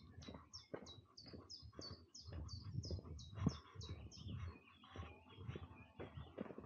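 Footsteps on a path, a step every half second or so, one landing louder midway. Over them a songbird sings a quick series of about a dozen repeated high notes through the first few seconds, then softer chirps.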